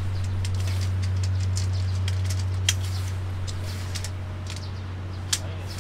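Tent fabric being lifted and shaken out, giving scattered short rustles and clicks, over a steady low hum.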